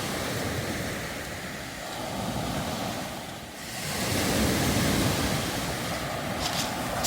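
Waves washing up and drawing back over a beach of round pebbles, the stones rattling in the surf; the wash swells, dips about three and a half seconds in, then swells again. A single footstep crunches on the pebbles near the end.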